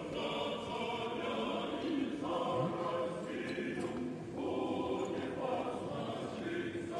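Choir singing slow, held chords, the harmony shifting about once a second.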